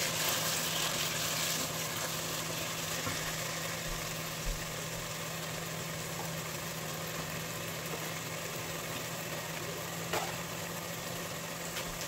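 Pot of sorrel leaves cooking in oil and water on the stove, bubbling and sizzling, over a steady low hum. A few light clicks, about four and ten seconds in.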